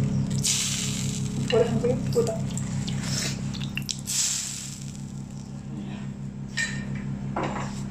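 Kitchen sounds while food is served onto a plate: a steady low hum throughout, with two short hissing noises, about half a second in and about four seconds in, and a few brief bits of voice.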